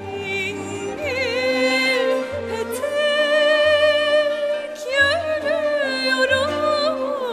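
A woman singing a Turkish classical art song in makam Kürdilihicazkar, holding long notes with wide vibrato and sliding between pitches. She is accompanied by a traditional Turkish ensemble of kanun, ney, ud, violin, kemençe, double bass and percussion, with a low bass note returning about every second and a bit.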